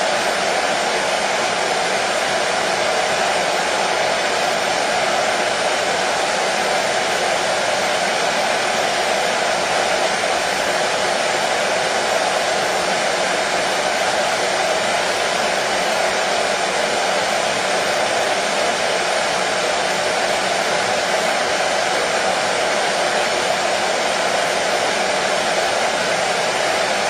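Hair dryer blowing continuously, a steady, unchanging whoosh with no variation.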